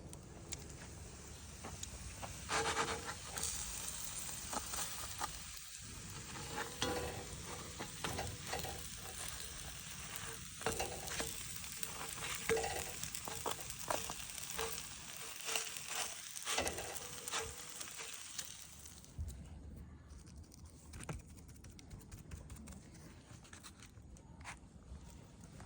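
Bison burger patties frying with a steady sizzle, broken by scattered light clicks and knocks. The sizzle drops off over the last several seconds.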